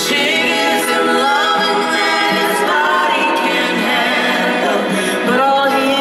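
Live pop ballad singing: a woman's lead voice with backing vocal harmonies over a soft band accompaniment.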